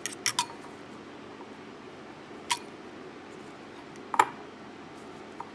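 A few light clicks and taps of kitchen utensils and bowls while shrimp are coated in shredded coconut: a quick cluster of three at the start, then single taps about two and a half and four seconds in, the second one the loudest, over a faint steady hum.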